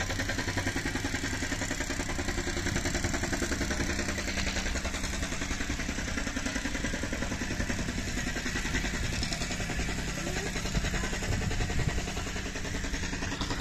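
An engine runs steadily with an even, fast pulsing rhythm, most likely from a rail vehicle moving or idling on the station tracks.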